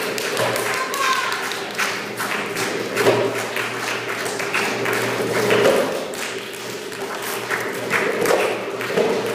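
Arabic tabla (darbuka goblet drum) played by hand in an improvised solo: a quick, uneven run of sharp strokes.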